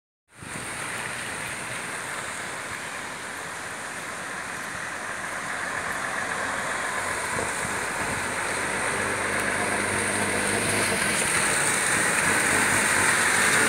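A steady rushing background with a heavy truck's engine drawing nearer. Its low hum grows steadily louder over the second half as the truck approaches.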